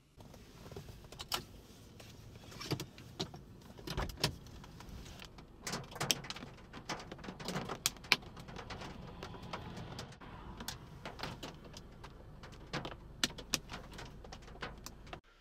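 Outdoor storm field audio: a low rumble of wind on the microphone with many sharp clicks and knocks scattered throughout. The background changes character about five seconds in.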